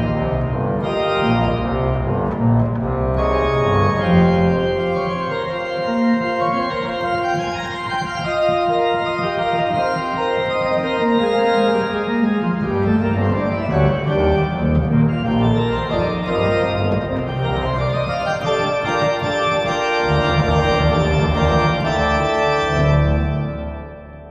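Church pipe organ playing the closing bars of a fast, virtuosic toccata in baroque style with twentieth-century harmony, with busy manual figures over low pedal notes. The final chords are held, then released near the end, and the sound dies away in the church's reverberation.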